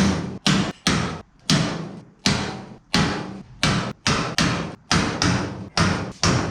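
Steady hammer blows on sheet steel, about one every half second, each ringing briefly before the next.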